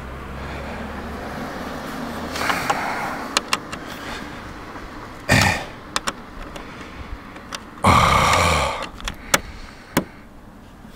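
Small clicks and ticks of an Allen key being set into socket-head screws and turned a little at a time, metal on metal, with handling noise and a few short rustling bursts.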